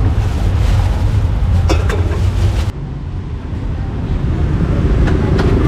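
Steady low rumble of street traffic, with a few sharp crackles of a plastic bag being handled just under two seconds in. The background changes abruptly a little under three seconds in, becoming slightly quieter.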